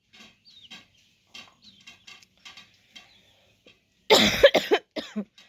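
A woman coughing from a cold: a loud run of three or four harsh coughs about four seconds in, with one more shortly after, following a few faint short sounds.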